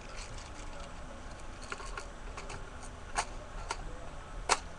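Scattered sharp mechanical clicks from an M16A1 airsoft rifle: a few faint ones, then louder single clicks, the loudest near the end.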